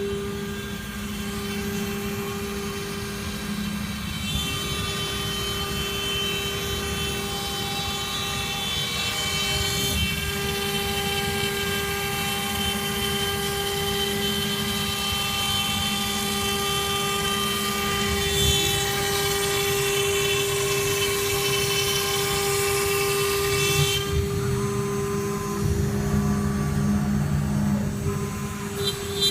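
CNC router spindle running at a steady high-pitched whine while cutting sheet material, with a hiss of the cut over it; near the end the hiss drops away while the spindle whine continues.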